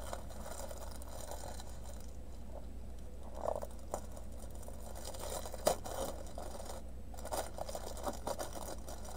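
Plastic packaging of a small diamond painting kit crinkling and rustling as it is handled and opened, with light clicks and rattles as the bagged resin drills inside shift. It is faint at first and grows busier about halfway through.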